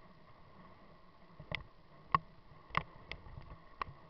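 Mountain bike rolling fast over a gravel road: a low steady rumble of tyres on loose stones, with a handful of irregular sharp clicks and knocks as the bike and camera jolt over the rough surface, the loudest about two seconds in.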